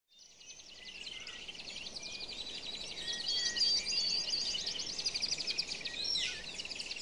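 A dense chorus of birds chirping, trilling and whistling over a faint hiss, fading in from silence at the start.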